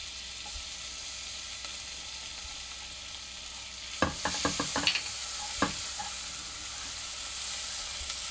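Butter sizzling in a pot with crushed garlic frying in it. A silicone spatula stirs and knocks against the pot several times between about four and six seconds in, and the sizzle grows a little louder as it is stirred.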